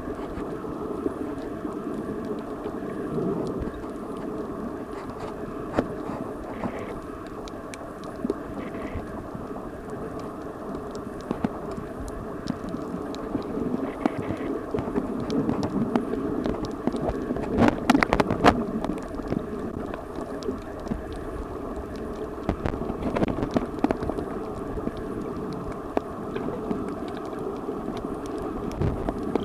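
Underwater sound picked up by a camera below the surface while snorkeling over a coral reef: a steady, muffled rumble of water with scattered sharp clicks, and a brief flurry of louder clicks and knocks about eighteen seconds in.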